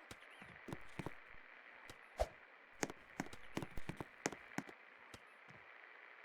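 Best Electric Works Jewel 52-inch ceiling fan running with a steady hum, with irregular sharp clicks and taps over it.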